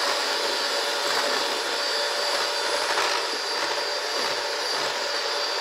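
Electric hand mixer running steadily at a constant speed, its twin beaters churning a thick chocolate batter in a bowl.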